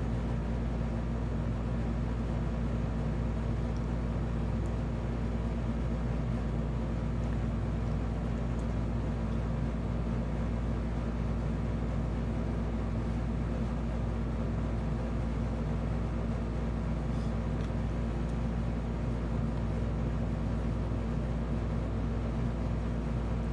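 Steady low room hum with a few faint steady tones, unchanging in level.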